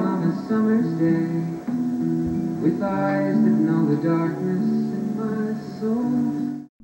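Music led by plucked and strummed guitar chords, with no vocal line; it cuts off suddenly near the end.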